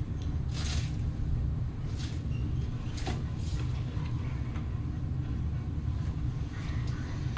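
A steady low rumble, with a few short light clicks and rattles over it.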